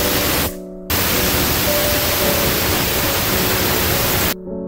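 Aluminium pressure cooker letting off steam through its weight valve: a loud, steady hiss of escaping steam, the whistle that marks the cooker has come up to pressure. It breaks off briefly about half a second in, then resumes and stops abruptly near the end.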